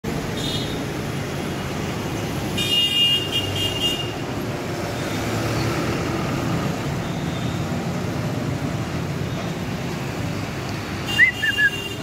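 Steady outdoor road-traffic noise. About three seconds in there is a brief high steady toot like a vehicle horn, and near the end come a few short high bird chirps.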